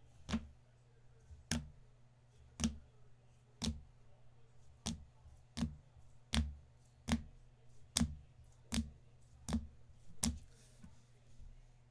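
Sharp taps, about a dozen at roughly one a second, each with a short low thump: trading cards being set down one by one on a table.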